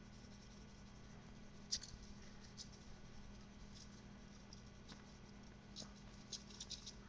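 Faint, scattered light ticks and scrapes of garlic powder being shaken from a spice container onto raw chicken thighs on a foil-lined tray, coming more often near the end, over a low steady hum.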